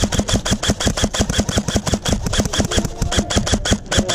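Airsoft electric gun firing a long full-auto burst: rapid, evenly spaced shots at about a dozen a second.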